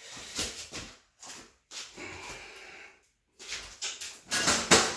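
Irregular knocks, rattles and scrapes of a metal bicycle part being worked by hand to free it from the frame, busiest and loudest in the last second and a half.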